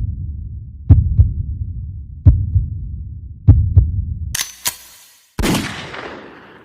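Heartbeat sound effect: slow, heavy double thumps (lub-dub) repeating about every second and a quarter. About four seconds in it gives way to sharp crackles and then a noisy crash that fades out.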